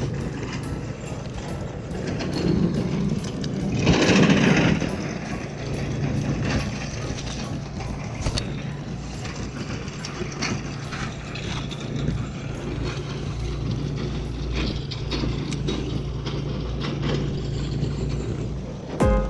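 Steady low mechanical hum like an engine running, with a louder rushing surge about four seconds in.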